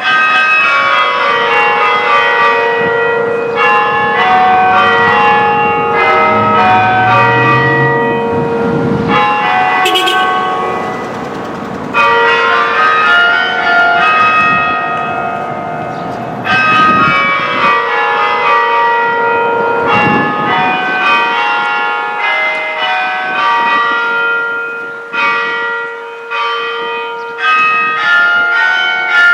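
Newly restored tower bells chiming, many bells struck in quick succession and ringing on over one another, with fresh runs of strikes starting about 12 and 17 seconds in.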